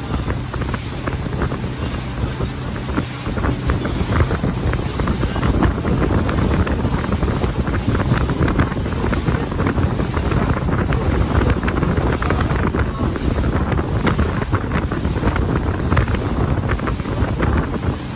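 Tour boat under way: its engine runs with a steady low hum while wind buffets the microphone in gusts, with water rushing past.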